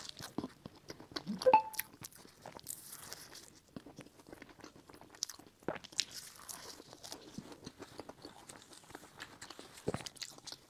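Close-miked eating of an egg tart: crisp pastry crunching under repeated bites and chewing, loudest about a second and a half in.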